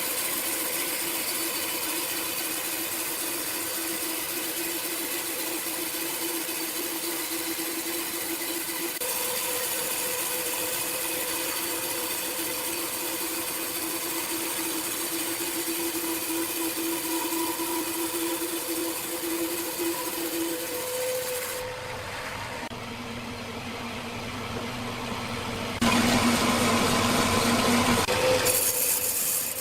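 Power saw running steadily with a constant hum. About three quarters through, the sound changes and grows duller, then a louder, harsher stretch lasts a couple of seconds near the end.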